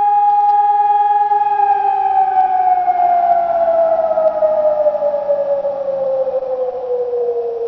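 Electronic ECN civil-defence siren ending its steady all-clear (Entwarnung) tone. The pitch holds for about a second and a half, then slides slowly and evenly downward as the signal winds down.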